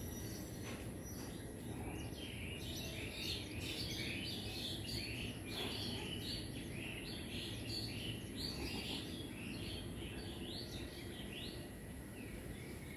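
Small birds chirping, a dense run of short, quick high chirps that starts about a second and a half in and thins out near the end, over a steady low background noise.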